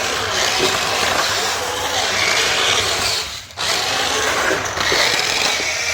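Small electric motors and plastic gears of toy remote-control bumper cars whirring as they drive, stopping briefly about halfway through and starting again.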